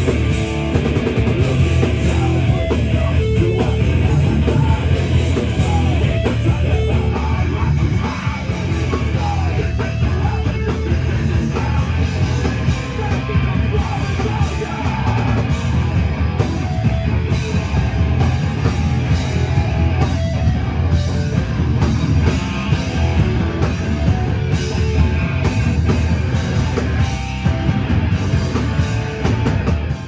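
Hardcore punk band playing live and loud: distorted electric guitars, bass and drums with shouted vocals. It cuts off abruptly at the end.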